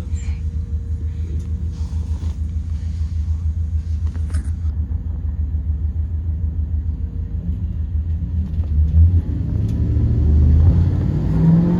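A 2023 Blue Bird Vision school bus's Ford 7.3L V8 engine is running under a steady low rumble. Near the end the engine note starts rising as the bus accelerates.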